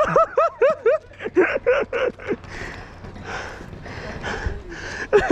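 A man laughing in quick repeated bursts for about two seconds, then fading into softer breathy noise.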